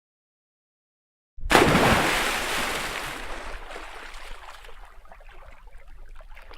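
A sudden loud splash and rush of water about a second and a half in, fading over a few seconds into lighter sloshing and bubbling.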